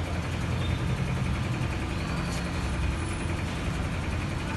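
Scooter engine running steadily with a low, even rumble, its exhaust silencer noisy and due for repair.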